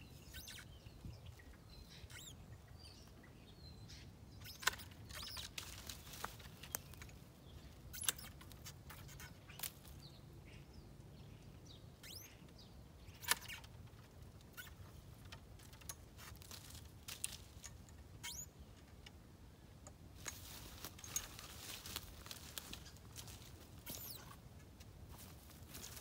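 Long-handled loppers snipping through bare fruit-tree branches: sharp cuts every few seconds, with twigs rustling and small birds chirping. A denser stretch of rustling comes near the end.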